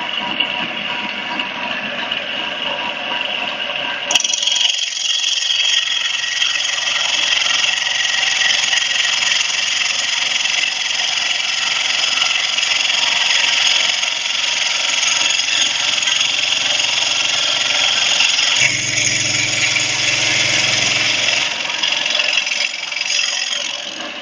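Stone CNC router spindle running and machining a stone slab: a loud, steady high grinding noise that shifts abruptly about four seconds in, with a low hum joining it for a few seconds near the end.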